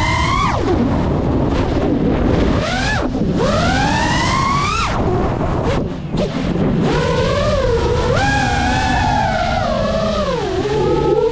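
FPV freestyle quadcopter's brushless motors whining, the pitch sweeping up and down with the throttle. It climbs steeply for a couple of seconds, drops out briefly around the middle, then wavers again.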